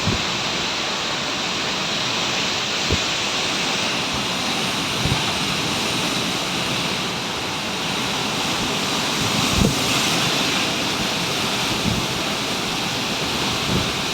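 Violent storm wind blowing with a steady rushing hiss, with a few brief low thumps of gusts buffeting the microphone.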